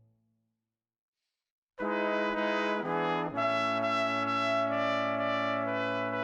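Background music: a short silence, then sustained chords start abruptly about two seconds in, with held notes changing pitch every second or so.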